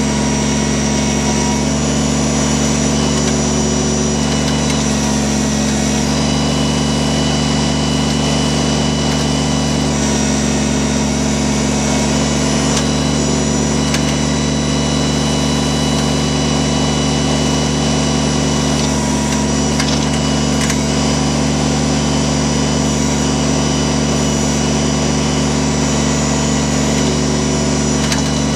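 Kubota BX24 compact tractor's three-cylinder diesel engine running steadily at working speed while it digs with the backhoe.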